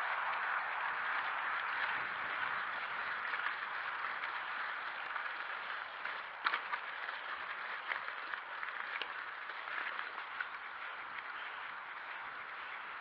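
Mountain bike tyres rolling over a gravel track, a steady crunching hiss, with a few sharp clicks and knocks from bumps about six and a half and nine seconds in. The noise eases a little near the end as the track gives way to tarmac.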